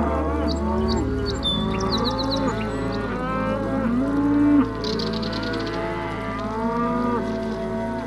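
Holstein cow mooing, the loudest call rising in pitch and cutting off sharply about four and a half seconds in, over soft background music with steady low notes.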